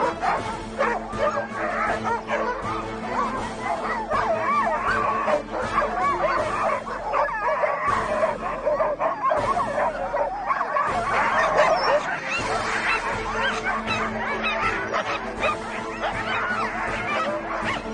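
A team of Alaskan huskies barking, yipping and howling all at once, the dense, constant clamour of sled dogs being harnessed before a race start. Background music runs underneath.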